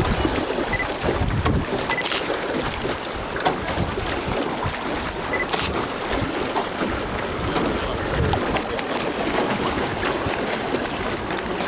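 Water splashing and lapping around a small wooden rowboat as it is rowed with wooden oars, with wind on the microphone and a few light knocks.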